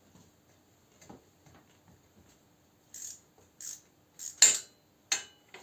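Metal hand tools clinking and clattering on the motorcycle engine while its valve cover is being taken off: scattered light clicks, then a few sharp metallic knocks, the loudest about four seconds in.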